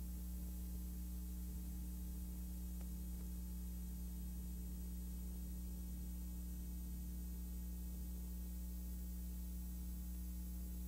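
Steady low electrical hum with a faint hiss and no other sound. The film was shot silent, so this is only the background noise of the transfer.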